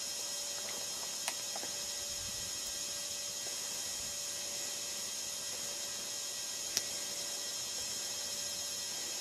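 Steady high hiss with a faint hum, broken by two brief soft clicks, one about a second in and one about seven seconds in.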